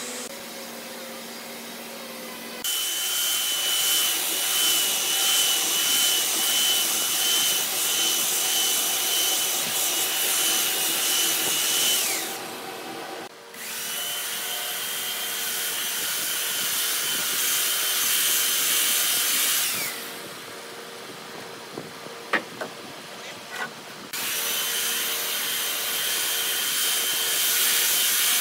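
Handheld electric belt sander running against a hardwood board in three runs of several seconds each: a steady high whine over a rough grinding hiss, switched off between runs, with a few sharp clicks in the second pause. A quieter low hum comes before the first run.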